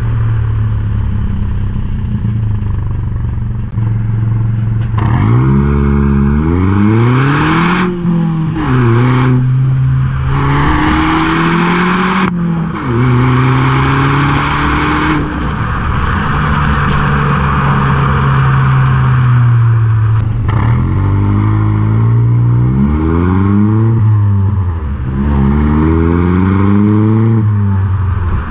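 Exhaust of a Chevy Sonic RS 1.4-litre turbo four-cylinder with the muffler deleted and the stock resonator kept, heard at the tailpipe while driving. The engine pitch climbs and drops at each upshift as the car accelerates through the gears, holds steady at cruise for a few seconds in the middle, then climbs through the gears again. Wind and road noise run underneath.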